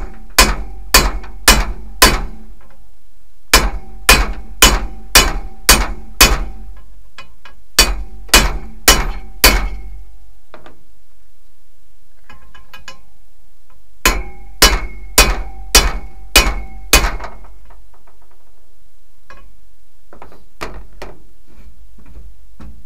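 Framing hammer striking the steel yoke of a driveshaft in four quick sets of four to six blows, about two a second, each blow with a short metallic ring, to knock a rusted U-joint bearing cap loose. The hammering stops about 17 seconds in, leaving a few faint clicks.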